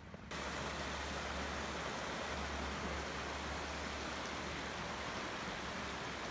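Shallow mountain stream running over stones: a steady, even rush of water with a low rumble underneath, starting suddenly just after the start.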